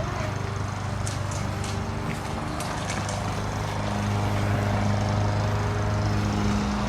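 Steady low hum of a running motor or engine, growing a little louder about four seconds in, with a few faint clicks over it.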